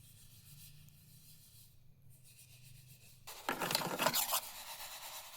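Vermicelli being stirred and scraped in a dry pan as it browns without oil, a loud scraping rustle starting about three seconds in and lasting about two seconds.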